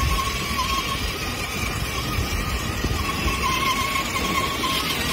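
Children's battery-powered ride-on toy car driving: its small electric motor gives a steady whine that wavers slightly, over a low rumble of hard plastic wheels rolling across paving stones.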